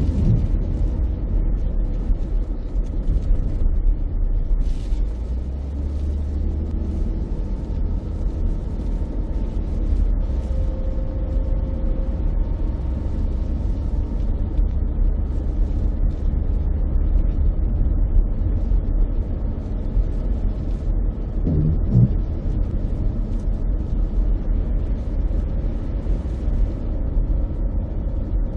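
Steady low rumble and hiss of a car driving on a rain-soaked road, heard from inside the cabin, with one brief low knock about three-quarters of the way through.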